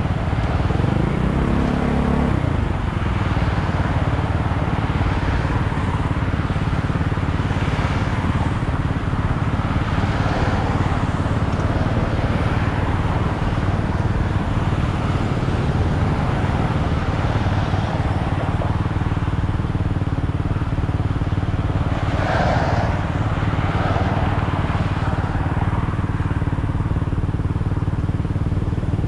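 A vehicle engine running steadily, its pitch rising briefly about a second in.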